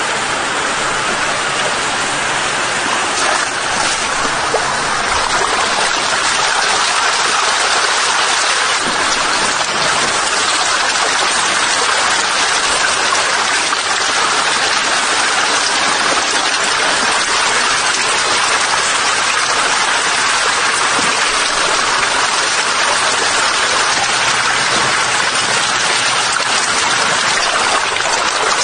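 Water in a tank crowded with eels, rushing and splashing steadily like a stream.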